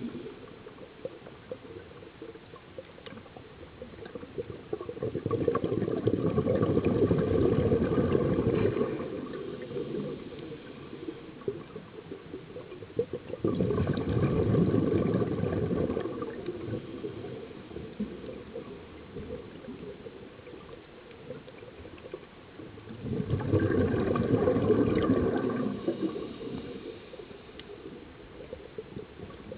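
Scuba diver's exhaled bubbles gurgling out of the regulator underwater: three long exhalations about nine seconds apart, each lasting two to three seconds, with a quieter hiss between them.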